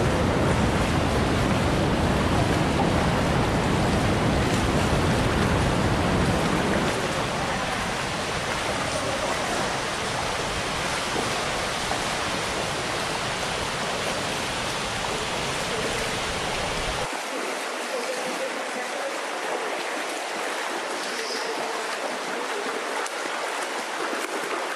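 Rushing water of waterfalls and cascades, a steady, even rush of noise. The deep rumble thins out about seven seconds in and drops away abruptly about seventeen seconds in, leaving a lighter, hissier rush.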